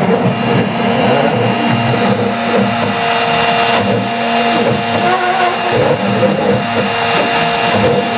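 Hitachi router spindle on a home-built CNC machine running steadily while its bit carves relief into a wooden board. Short wavering whines come and go over it from the stepper motors driving the axes.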